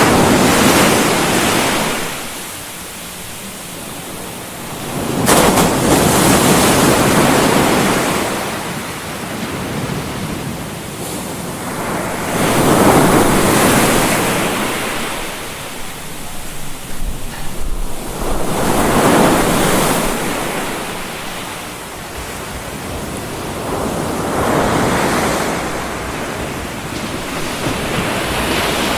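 Ocean surf: waves washing in as a noisy rush that swells and fades about every six seconds, five times.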